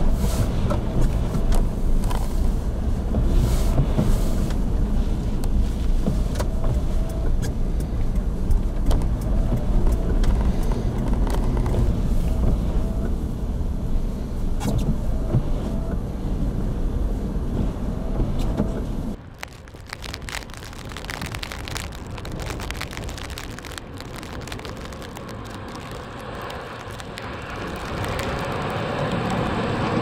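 Steady low rumble of a car driving on a snow-covered highway, heard from inside the cabin. About two-thirds through it cuts to quieter outdoor noise, and a snowplow truck grows louder near the end as it passes, pushing snow with its blade.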